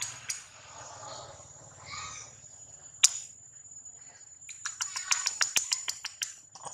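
A steady high insect trill runs throughout. About three seconds in there is one sharp snap, and from about four and a half to six seconds a quick run of crackling clicks.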